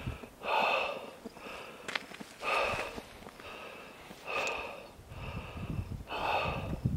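Heavy, rhythmic breathing: a strong breath about every two seconds, with softer breaths in between.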